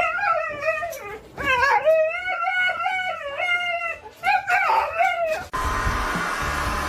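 A dog howling in three long, wavering howls. About five and a half seconds in, the sound cuts off abruptly to a steady hiss.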